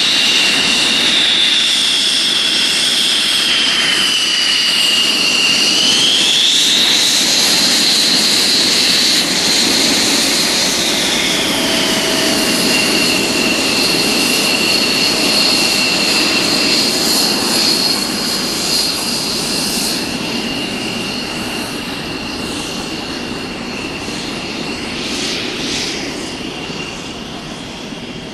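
High-pitched motor whine of an aircraft in flight. The pitch rises a few seconds in, drops back about ten seconds in, then holds steady while the sound slowly fades toward the end.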